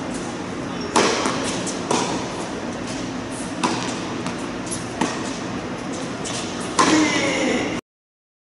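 Tennis ball struck by a racket and bouncing on an indoor hard court, a sharp pop every one to two seconds, echoing in the hall over a steady background hiss; the sound cuts off suddenly near the end.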